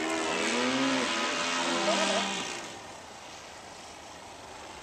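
Radio-controlled model biplane's engine running overhead, fading away about two and a half seconds in. Over it, several cows moo in long calls that overlap one another.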